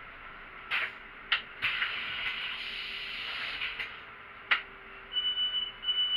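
Sounds from a city bus: a few sharp clicks, a hiss lasting about two seconds, then two high beeps near the end, over a steady low hum.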